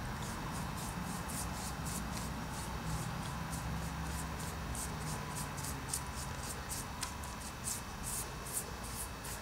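A paintbrush scrubbing thick green undercoat onto the white base, a quick scratchy swish with each stroke, about three a second and stronger in the second half, over a steady low hum.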